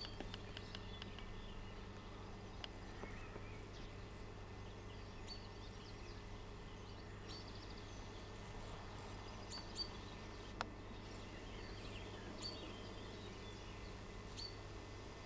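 Faint outdoor ambience: scattered short bird chirps over a steady low hum, with two small clicks a little after ten seconds in.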